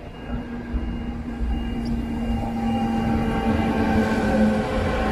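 Czech Railways (České dráhy) Siemens Vectron electric locomotive hauling a passenger train past at close range. Its traction equipment whines in several steady tones over the rumble of the running gear, growing louder as it approaches and draws level.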